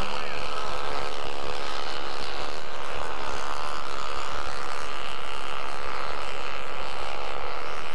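Several snow bikes (dirt bikes fitted with Timbersled track kits) climbing a steep snow slope together, their engines droning steadily at high revs with overlapping engine notes.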